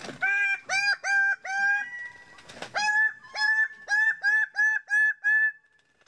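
Male greater bird-of-paradise giving its loud, repeated display call. First comes a run of about five short calls, each rising sharply at the start and then held. After a short pause comes a quicker run of about ten, which stops shortly before the end.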